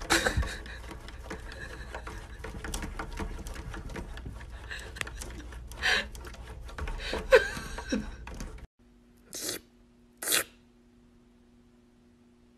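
A cat's paws and claws tapping, scratching and scrabbling at a window pane and sill: a dense run of small clicks with a few louder knocks. It stops suddenly and is followed by two short, sharp noises over a faint steady hum.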